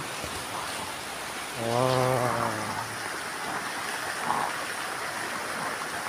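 Steady rain falling on a greenhouse roof, an even hiss, with a short drawn-out hum of a man's voice about two seconds in.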